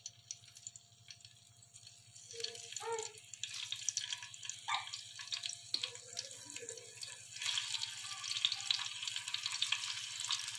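Marinated beef tikka boti skewers sizzling and crackling in oil on a hot tawa griddle. The sizzle gets louder about seven seconds in as more skewers go onto the pan.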